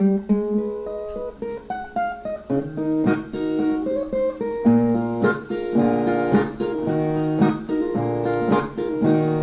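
Brazilian viola playing a plucked instrumental break in a song, picking a melody of single notes over sustained low bass notes.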